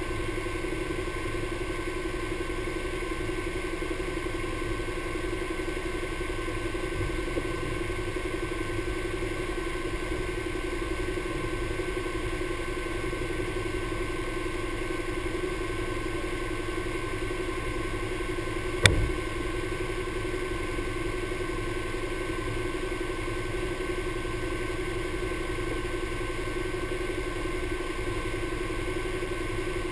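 Side-by-side UTV engine idling with a steady, even hum, and one sharp knock about 19 seconds in.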